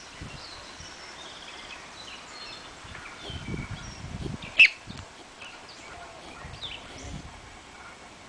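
Small birds chirping and singing, with scattered short calls, some low rumbles and one loud, sharp, very short call about halfway through.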